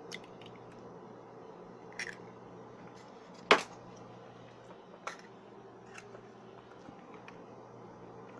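An egg cracked into a glass mixing bowl: a sharp crack about three and a half seconds in, among a few lighter clicks and taps of shell and handling. A faint steady hum runs underneath.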